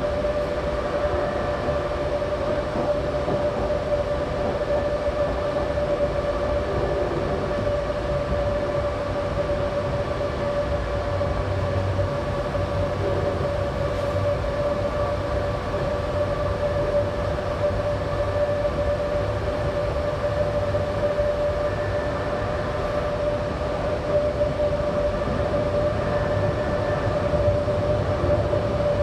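Berlin U-Bahn G1/1E train running at steady speed through a tunnel, heard from inside the car: a continuous rumble of wheels on rails with a steady whine over it.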